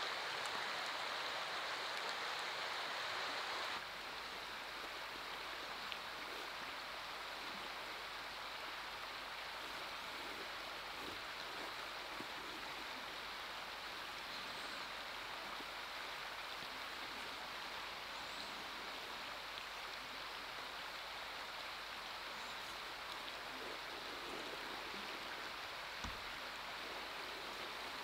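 Steady rushing outdoor noise like running water. It drops in level about four seconds in, and there is a soft low knock near the end.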